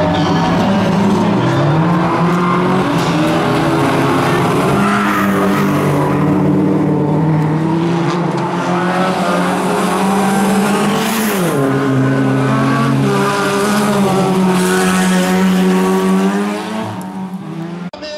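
Two bilcross race cars racing close together, their engines revving hard with several engine notes rising and falling and one dropping sharply about eleven seconds in, tyres skidding through the corner. The engines fade near the end as the cars pull away.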